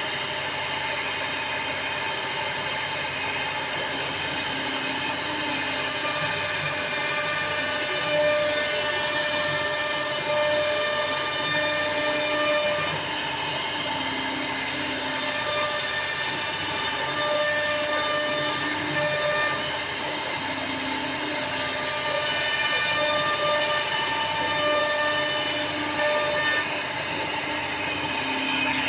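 CNC router carving wood: the spindle runs steadily while the motors driving the gantry sing in steady tones that step to new pitches every second or two as the tool changes direction.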